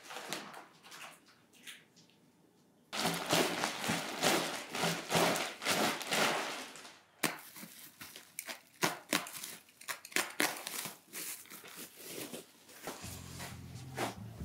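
Plastic packaging being crinkled and pulled off a rolled wool rug by hand, a run of irregular rustles and crackles starting about three seconds in. Music comes in near the end.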